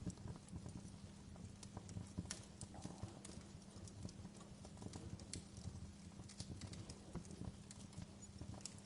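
Campfire crackling: frequent irregular sharp pops and snaps over a steady low rumble.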